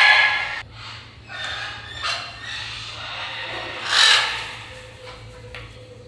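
Parrots squawking: a few short, harsh calls, the loudest about four seconds in.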